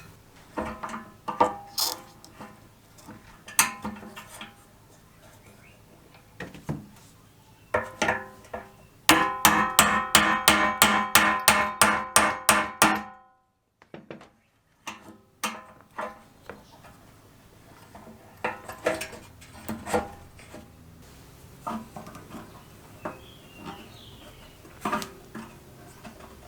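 Metal clinks and knocks from tools working on a steel jerry can, with scattered single strikes. Midway comes a run of rapid ringing metallic taps, about five a second for some four seconds, followed by a short pause and more scattered knocks.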